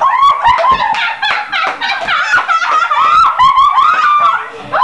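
A girl's voice making a long, high, wavering vocal noise held for about four and a half seconds, broken off briefly near the end, done on purpose as an annoying sound.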